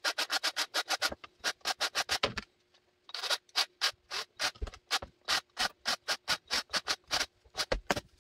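Quick, even rubbing or scraping strokes, about five a second, stopping for half a second about two and a half seconds in and then going on; a faint steady hum sits under the second part.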